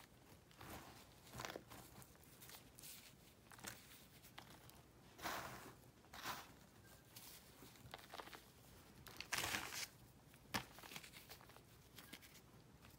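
Fingers crumbling and squeezing clumps of dry crunchy powder: faint, scattered crunches and crackles as the clumps break and the bits fall back onto the pile, the loudest about five seconds in and again near ten seconds.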